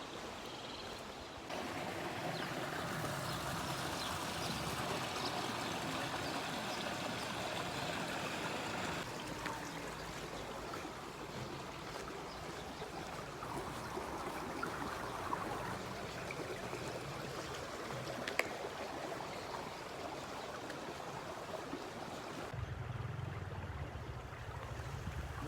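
A stream of flowing water, rushing and trickling steadily across several cut-together shots. Near the end the water gives way to a lower rumble.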